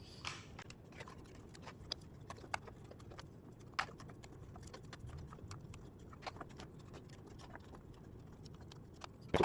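Foam darts being pushed one by one into an AIT Lightning blaster magazine: irregular light plastic clicks and taps as each dart seats.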